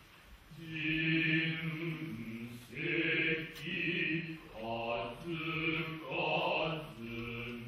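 Noh chant (utai) from the jiutai chorus that accompanies a Kita-school shimai: men's voices in unison on low, drawn-out syllables. After a brief pause at the start, each note is held for about a second with short breaks between them.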